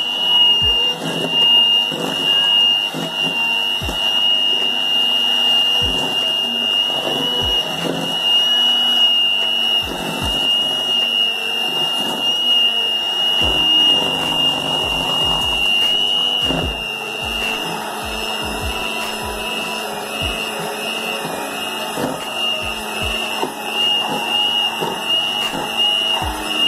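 Electric hand mixer running, its beaters working flour and milk into dough in a stainless steel bowl: a steady high motor whine with irregular knocks of the beaters against the bowl.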